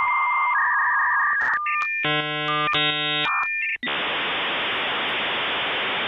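Recorded dial-up modem handshake played from a soundboard: steady single tones that step in pitch, then a dense chord of many tones from about two seconds in, then a steady hiss of data noise from about four seconds in.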